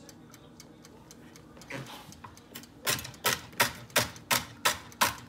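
Chef's knife chopping a celery stalk on a cutting board, the blade striking the board in steady, even strokes about three a second, starting about three seconds in. Faint ticking before the chopping begins.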